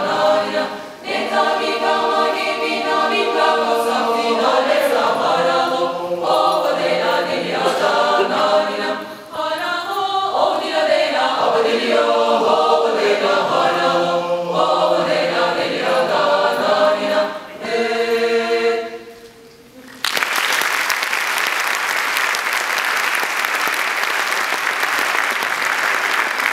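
Mixed choir singing in several parts, closing on a held final chord that fades out about three-quarters of the way in. Audience applause breaks out suddenly right after and continues.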